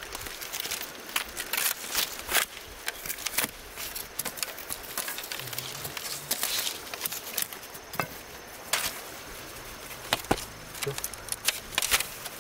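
Irregular sharp knocks, cracks and rustling of hands-on outdoor work, with a faint voice now and then.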